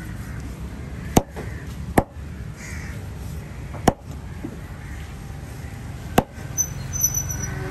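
Knife chopping fish: four sharp, irregularly spaced strikes over steady background noise.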